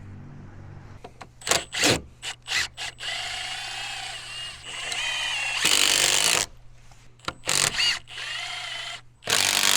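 Cordless drill running in several short runs with a whining motor, driving screws into wooden form boards, with short knocks in between.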